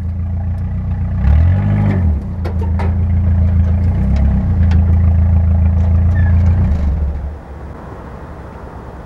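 A vehicle engine straining under load as it pulls on a chain hooked to a rusted car body. Its pitch dips and recovers a couple of times, then it drops back to a quieter idle about seven seconds in, with a few sharp metal clanks along the way.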